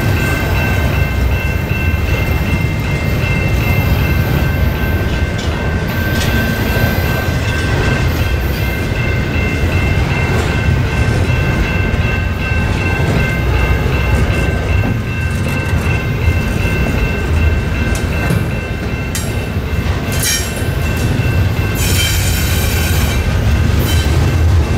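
Double-stack intermodal well cars rolling past on jointed track: a steady, loud rumble of steel wheels on rail, with a steady high whine over it. Short bursts of rattle and clatter come about 20 and 22 seconds in.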